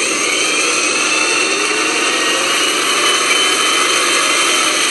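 Garbage truck engine running steadily, with a whine that rises in pitch during the first two seconds.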